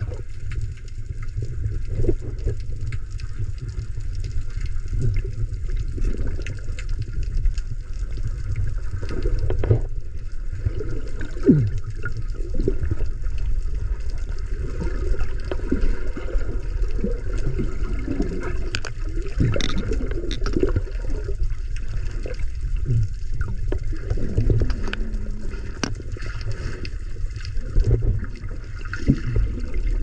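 Muffled underwater sound from a camera in its waterproof housing: a steady low rumble of moving water with irregular bursts of bubbling and gurgling.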